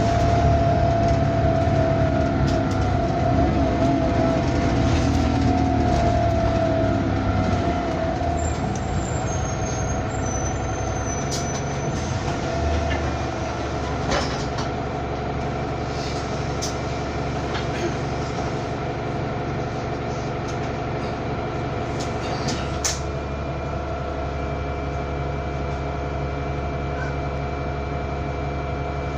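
Bus running, heard from on board, with a pronounced whine that drifts slowly down in pitch over the first several seconds as it slows. It settles into a steady hum of several fixed tones, with a few sharp clicks and knocks.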